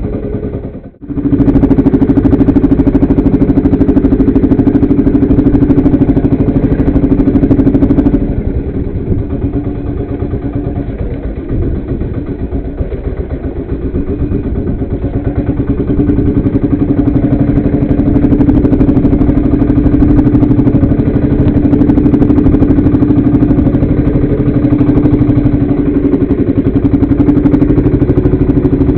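Engine on a wooden fishing boat running steadily with a held hum. There is a brief dropout about a second in, and the sound is lower and rougher for several seconds in the middle before it settles back to its steady level.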